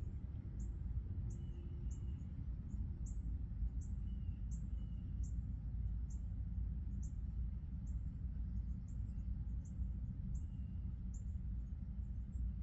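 Outdoor ambience: short, high chirps repeat about twice a second, with a few faint whistled bird-like notes, over a steady low rumble.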